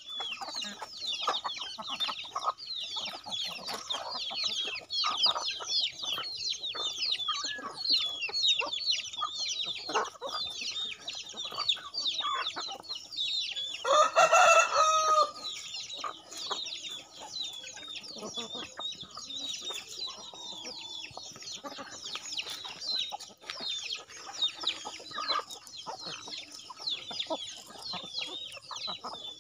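A flock of chickens clucking, with many quick high peeps running throughout. A rooster crows once about halfway through, the loudest sound.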